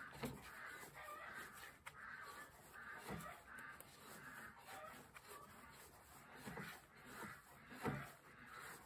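Used car steering rack creaking and squeaking in short repeated rasps as its pinion is turned back and forth by hand with a tool, moving the tie rods, with a few dull knocks.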